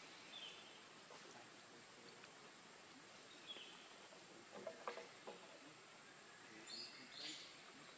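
Quiet forest ambience with a steady thin high tone, a few faint high chirps, and two short high-pitched calls close together near the end.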